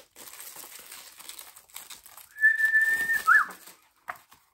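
Plastic sleeve rustling and crinkling as a notepad is worked out of it, then a loud clear whistle held on one note for about a second, ending in a quick dip and rise in pitch.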